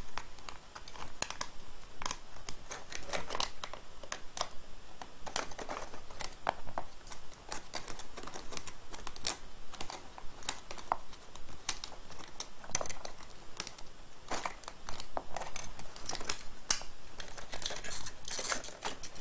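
Hard plastic parts of an Orient HS-400MT headphone ear cup being handled and pried apart: irregular clicks, taps and scrapes, with small rattles of the wires.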